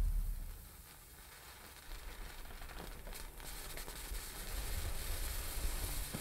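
A deep low boom fades away over the first second. A low rumbling drone with a faint hiss follows, with a few faint clicks, and it slowly grows louder.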